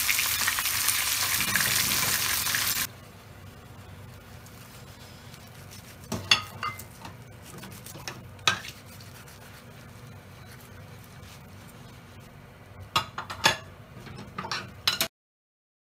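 Breaded pork katsu sizzling in shallow frying oil in a pan, cutting off suddenly about three seconds in. Then a few sharp crunching clicks as a knife cuts through the crisp fried cutlet, in two clusters, one mid-way and one near the end.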